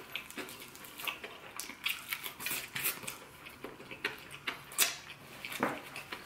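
Crispy fried chicken being chewed and torn apart by hand: irregular crunches and crackles from the breaded skin.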